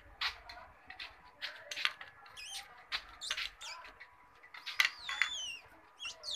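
Several high, squeaky animal calls that glide up and down in pitch, in short groups about two and a half seconds in and again around five seconds, among light clicks and taps.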